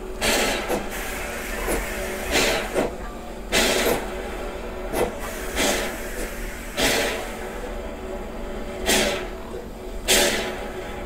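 Nevada Northern No. 81, a Baldwin 2-8-0 steam locomotive, chuffing slowly as it moves at low speed. Its exhaust beats come unevenly, roughly one a second, over a steady mechanical hum.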